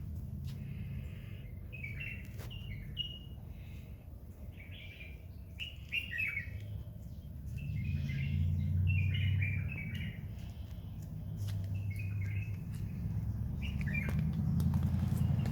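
Small birds chirping in repeated quick clusters of short high notes, over a low rumble that grows louder about halfway through.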